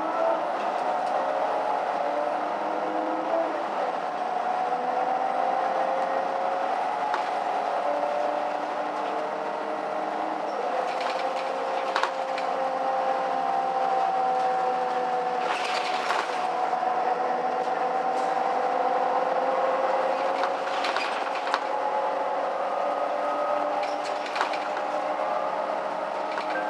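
Inside a moving Mercedes-Benz O530 Citaro city bus: the engine and driveline run with several tones that slowly rise and fall as the bus gathers and loses speed. A few short knocks and rattles come through now and then.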